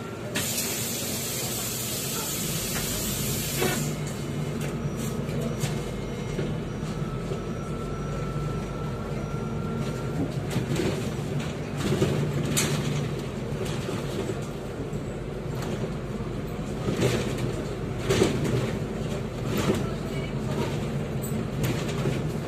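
Inside a moving MAZ-203 city bus: the engine runs with a steady low drone, and the body gives off scattered knocks and rattles. A burst of compressed-air hiss starts about half a second in and stops after about three seconds.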